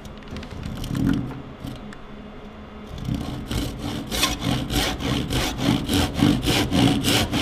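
Tenon saw cutting across a piece of timber, sawing down a marked line for the side of a trench (housing joint). A few light strokes start the cut, then steady back-and-forth strokes, about three a second, from about three seconds in.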